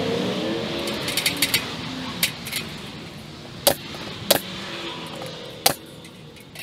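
A low hum fades away over the first second or so. Then come a series of sharp, separate knocks and clicks, a few loud single strikes among lighter clinks, from working on the wooden fascia board at the eave from an aluminium ladder.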